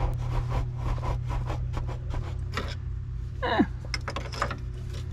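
Scattered metallic clicks and scraping of a tool working against the front suspension's control arm and its bushings, over a steady low hum. About three and a half seconds in there is one brief falling squeal-like tone.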